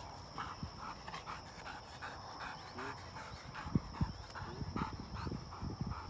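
Black Labrador retriever panting rapidly, about four breaths a second, winded from a retrieve. A couple of soft low thumps come around the middle.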